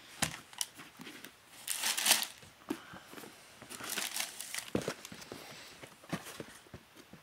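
Tissue paper crinkling and rustling in irregular bursts as sneakers are lifted and handled in their box, the loudest burst about two seconds in, with a few light knocks.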